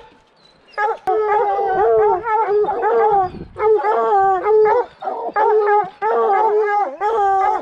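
A pack of hunting hounds baying and howling together at the foot of a tree, the sign of a mountain lion treed. After a brief lull at the start, several long, wavering voices overlap almost without a break.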